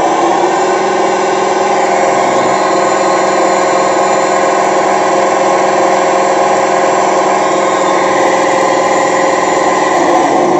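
Handmade RC Hino dump truck running in first gear: a steady whir from its drive motor and gearbox mixed with its sound unit's simulated truck engine.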